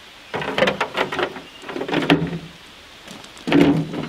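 Footsteps crunching on gravel in three short, loud bursts.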